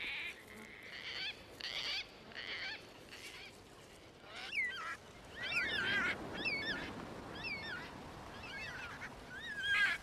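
Gang-gang cockatoos giving short, raspy calls about twice a second. After a few seconds, a mix of smaller birds' whistled, warbling songs with rising and falling notes takes over, over a low rushing noise.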